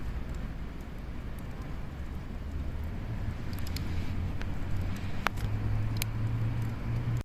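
Wood bonfire burning, with a few sharp crackling pops in the second half over a steady low rumble.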